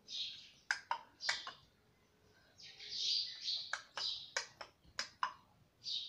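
Indian ringneck parakeet chattering quietly: soft scratchy warbles mixed with short sharp clicks, with a pause of about a second near the middle.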